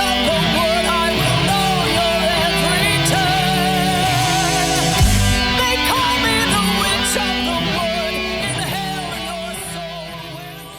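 Heavy rock music with guitar, fading out over the last few seconds.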